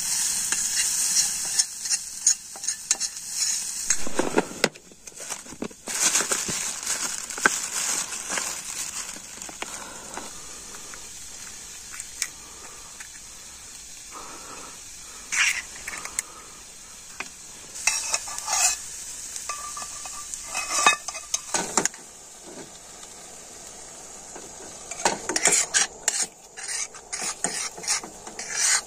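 Spiced onion-tomato masala sizzling in a steel pan over a small camping gas stove, with a spoon scraping and stirring against the pan. About midway, a few sharp taps as eggs are cracked against a steel bowl. Near the end the stirring gets busier as the eggs are mixed in.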